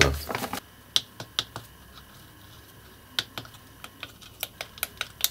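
Irregular light clicks and taps from a small plastic-cased DPS5005 power supply module being handled: a few about a second in, then a faster run from about three seconds to the end.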